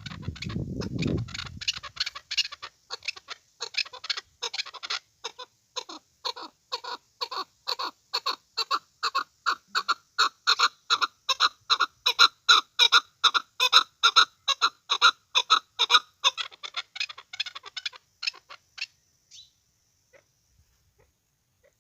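Chukar partridge calling: a long run of short, rapid clucking notes, several a second, that build to a loud peak in the middle and then taper away, stopping a few seconds before the end. A low rumble sits under the first couple of seconds.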